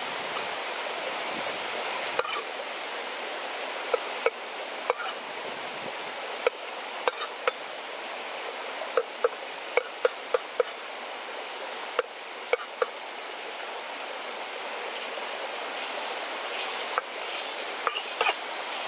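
Shallow forest stream running steadily, with irregular sharp taps of a cleaver knocking on a wooden cutting board as shrimp are trimmed, most of them clustered in the middle.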